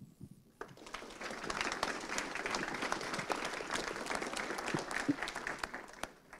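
Audience applauding: many hands clapping in a dense patter that swells in during the first second and dies away near the end.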